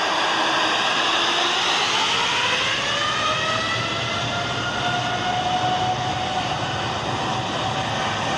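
Boeing 787-8 airliner's twin jet engines spooling up to takeoff thrust. Their whine rises in pitch from about one second in to about five seconds in, then holds steady over the rush of jet noise.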